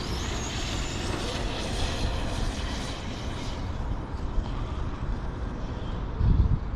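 Electric motor of an Arrma Kraton RC monster truck running a 12S setup, a high whine that slowly falls in pitch over the first few seconds as the truck runs on, over a steady low rumble.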